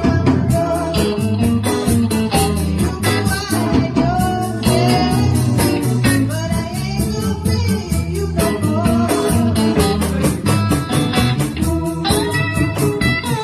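A small live blues band jamming, with a steady drum beat under bass and electric guitar and a melodic lead or vocal line over the top.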